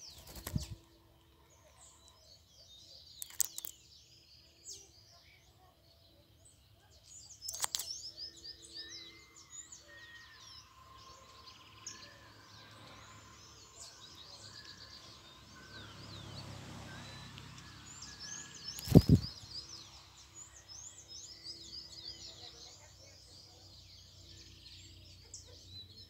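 Many small songbirds chirping and singing at once, with rapid high twitters and trills overlapping throughout. Several sharp knocks cut through, the loudest about three quarters of the way through.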